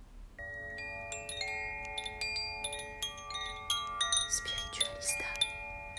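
Chimes ring in about half a second in, many struck metal notes sounding on and overlapping, with high tinkling notes above. Near the end a voice says 'Spiritualista' over them.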